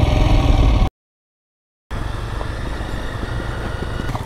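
Royal Enfield Himalayan's single-cylinder engine running for about a second, cut off abruptly into a second of total silence. Then a motorcycle riding along a dirt track, with engine and road noise at a lower, steady level.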